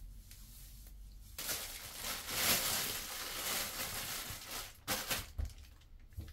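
Clear plastic shower cap crinkling as it is pulled on and fitted over conditioner-coated hair, starting about a second and a half in and lasting a few seconds. A few short knocks follow near the end.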